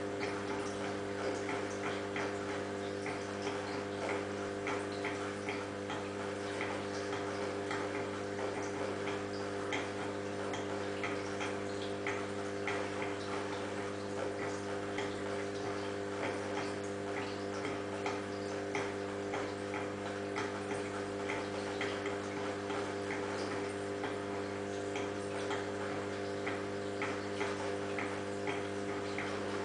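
Aquarium pump running with a steady hum and rapid, irregular light ticking.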